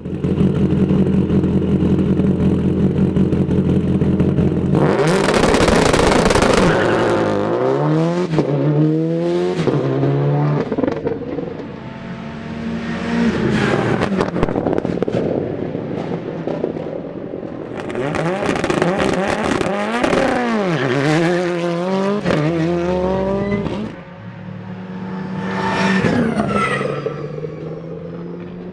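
Rally cars on a sealed stage. The first is a Subaru WRX STI's turbocharged flat-four, idling steadily, then launching hard at about five seconds and climbing through the gears in rising revs with short drops at each change. Several more rally cars follow, revving hard through their gears, the last one going past with its engine note falling away.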